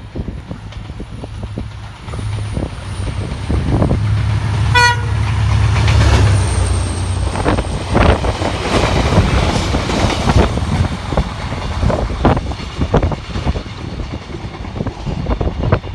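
Iarnród Éireann 071-class diesel locomotive 081 passing at the head of a Sperry rail-test train: its EMD V12 two-stroke diesel drones as it approaches, it gives one very short horn toot about five seconds in, and then comes the loud rumble of the train going by, with wheels clicking over the rails.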